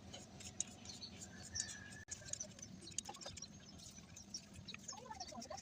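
Faint, scattered light clicks and taps of parts and tools being handled.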